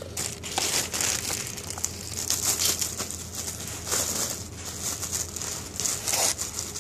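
Clear plastic packing bag crinkling and rustling continuously, with many sharp crackles, as an air compressor and its wiring are worked out of it.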